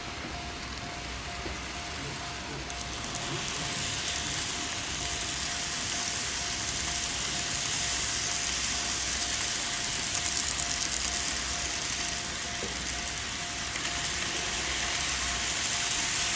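N gauge model train running on the layout track: a rapid rattling whir of wheels and motor that grows louder about three seconds in, with a faint steady hum underneath.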